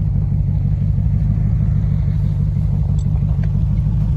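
1999 Land Rover Discovery II's 4.0-litre V8 engine running with a steady low rumble.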